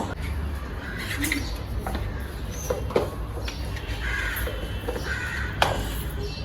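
Crows cawing, two harsh calls in the second half, over a steady low rumble, with a few sharp taps, the loudest near the end.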